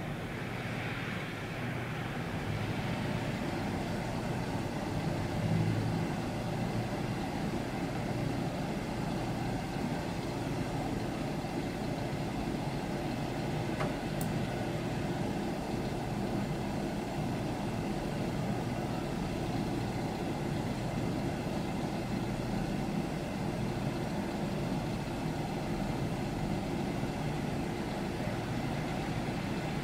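Steady low rumble of distant traffic, with one faint click about halfway through.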